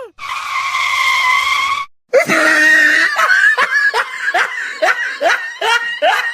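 A high-pitched voice: one held, steady call, then after a short break a run of short cries, each rising in pitch, about two a second, in the manner of shrieking laughter.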